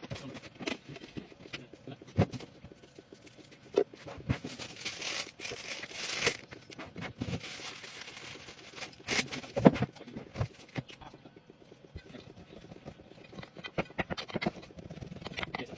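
Kitchen handling sounds during food preparation: irregular knocks and clacks of utensils and containers, with two spells of rustling hiss.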